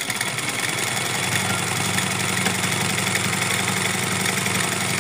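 Black domestic sewing machine running steadily at speed: a constant hum with a fast, even clatter from the needle mechanism.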